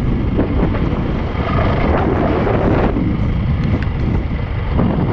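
Heavy wind buffeting on a helmet-mounted microphone while riding, with a 450 dirt bike's engine running underneath.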